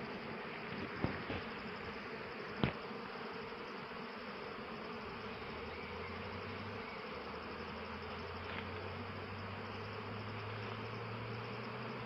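Steady buzzing of many honey bees flying around eucalyptus trees and their hives, foraging for nectar. There is a deeper hum from about halfway through, and two brief knocks in the first three seconds.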